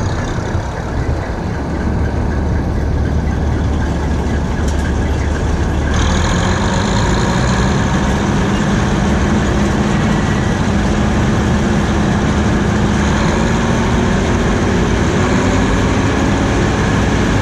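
Bizon Z056 combine harvester running close up, its six-cylinder diesel engine and machinery making a loud, steady drone. About six seconds in, the sound grows brighter and a steady hum comes in that slowly rises in pitch.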